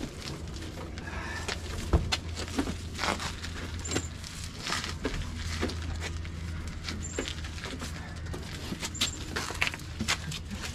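Ears of corn being tossed into a tray one after another: irregular knocks and clicks over a steady low hum.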